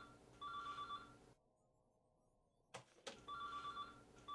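A telephone ringing in pairs of short rings: two rings, a pause of about two seconds, then two more. Two sharp knocks come just before the second pair.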